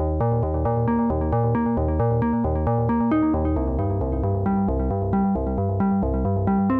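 Background music: a synthesizer or electric-piano pattern of short repeated notes over a pulsing bass, in an electronic style.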